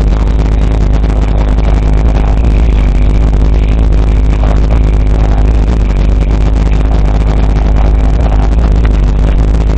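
Very loud, steady deep bass from two 12-inch Power Acoustik FUBR-12 subwoofers in a 10 cubic-foot ported box tuned to 28 Hz, playing rap music at high volume inside the vehicle's cabin.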